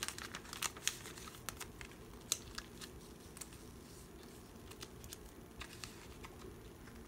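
Clear plastic binder pocket pages and card sleeves crinkling as photocards are slid into them and pressed flat. A run of sharp crackles fills the first few seconds, then a quiet spell, then a few more near the end.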